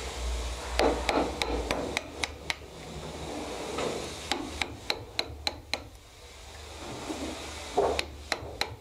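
A small hammer tapping a wooden-handled chisel to pare the plank rebate into a wooden boat's stem, in three runs of light, quick blows about four a second. There is a soft rustle between the runs.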